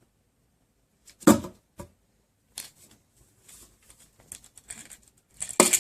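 Irregular rustling and knocking handling noises, with a loud burst about a second in and another near the end.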